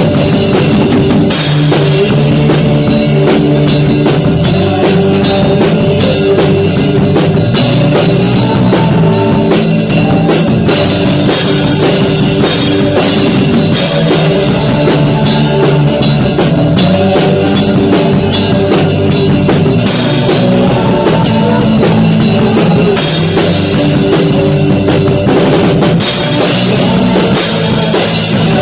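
Live praise-band music led by an acoustic drum kit: bass drum, snare and cymbals keep a steady rock beat over sustained keyboard, electric guitar and bass guitar notes.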